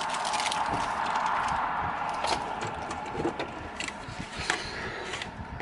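Making tea: a steady hiss that slowly fades, with light clicks and scrapes of cups and utensils.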